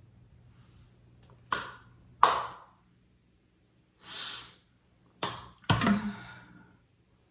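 Makeup tools handled and set down on a vanity table: two sharp taps about a second and a half in, a short soft hiss in the middle, then two more knocks with a brief clatter near the end as a powder compact is picked up.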